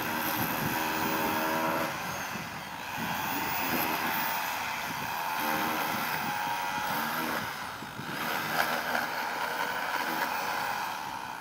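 Outdoor street noise with the changing engine hum of passing motor vehicles, swelling and fading several times.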